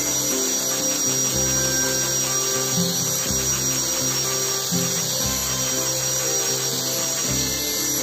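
Background music whose bass notes change about every two seconds, over the steady high whine of an electric angle grinder with a sanding pad sanding the edge of a PVC pipe strip.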